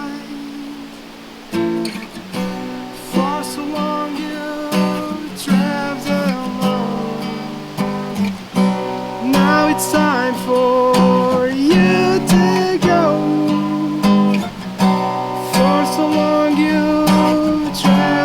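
Acoustic guitar strummed and picked through an instrumental passage of a song, with chords struck every second or so and left to ring.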